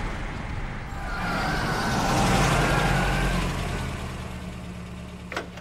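Box delivery truck's engine running after the impact: a rumble that swells about two seconds in and then fades, with a steady low engine tone underneath. A single sharp click near the end.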